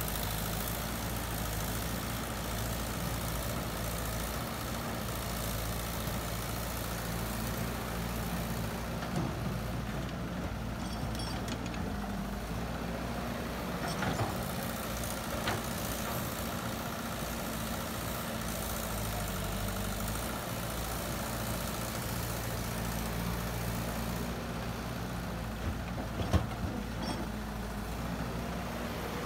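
Caterpillar tracked excavator's diesel engine running steadily as it digs and loads soil, with a few sharp knocks about halfway through and again near the end.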